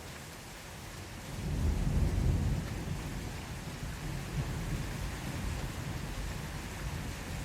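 Steady rain falling with a low, soft roll of thunder that swells about a second and a half in, peaks briefly, and then rumbles on more quietly under the rain.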